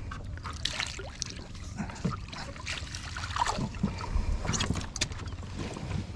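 Water splashing and dripping off a rubber-mesh landing net as a snakehead fish is lifted out of the water into a small boat, with scattered knocks and scrapes of the net frame against the hull.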